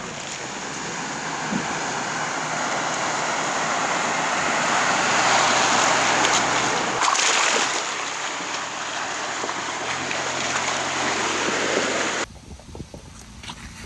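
Ford Bronco Everglades wading through deep muddy water, the water rushing and splashing around its tyres and bumper, with the engine running low underneath. The rush swells in the middle, then drops suddenly near the end to quieter water with small splashes.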